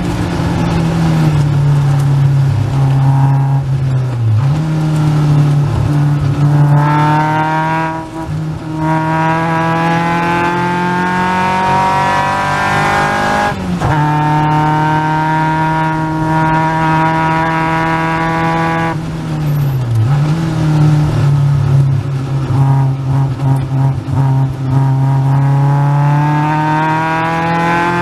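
Caterham Seven's 2.3-litre Ford Duratec four-cylinder engine at racing speed, its revs climbing steadily under acceleration. The pitch drops sharply at a gear change about 14 seconds in and dips briefly twice, near 4 and 20 seconds, before climbing again.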